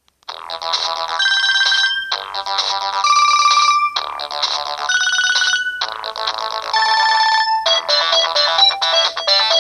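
Samsung GT-E1205T stock ringtone playing through the loudspeaker of a Samsung GT-E2250 mobile phone. After a brief silence a new tune starts: a bright, bell-like phrase about two seconds long repeated four times, then, near the end, a faster run of short notes.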